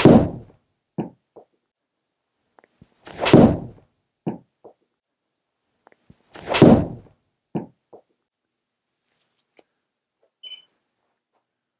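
Three golf iron shots hit one after another, each a sharp club-on-ball strike, followed by fainter short knocks.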